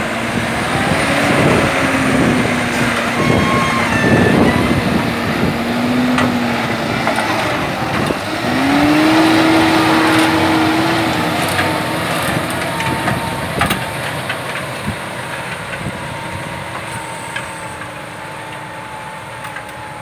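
John Deere 6215R tractor's six-cylinder diesel engine running under load while it pulls a Maschio rotary tiller through the soil. Its note rises once about eight seconds in, and the sound grows fainter in the second half as the tractor moves away.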